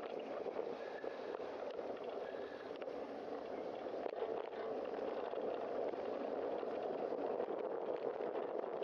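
Steady, muffled rush of wind and road noise from a bicycle riding through traffic on wet pavement.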